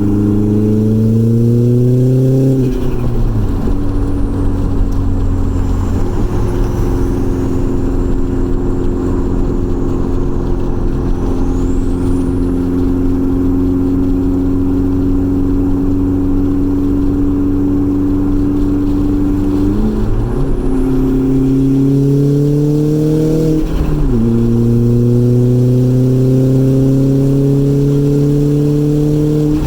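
Audi A4 B5's turbocharged 1.8-litre four-cylinder engine pulling under boost through the gears: the engine note climbs, drops sharply at a shift about two seconds in, then holds steady for a long stretch while cruising. From about 20 s it climbs again, drops at another shift near 24 s, and climbs once more. The stock K03 turbo flutters at the lift-offs.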